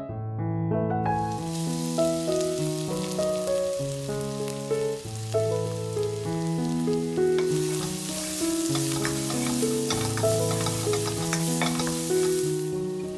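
Food frying and sizzling in a hot pan with crackling oil, starting about a second in, louder in the second half and dropping away just before the end. Background keyboard music plays throughout.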